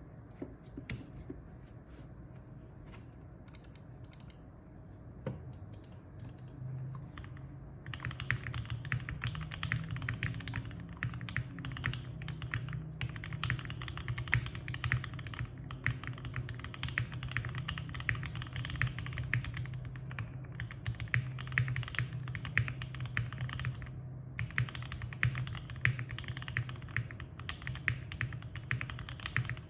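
Fast continuous typing on a Parallel Limited Portal65 mechanical keyboard with lubed OPBlack switches on an FR4 plate and GMK keycaps. Quiet at first, the typing becomes a dense run of keystrokes about eight seconds in, with a few brief pauses.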